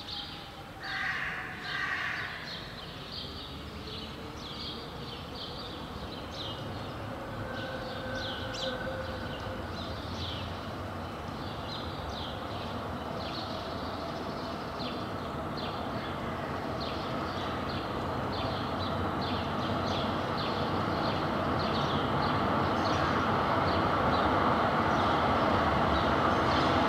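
Tram approaching on street rails, its rolling noise growing steadily louder through the second half, with short high chirps repeating throughout.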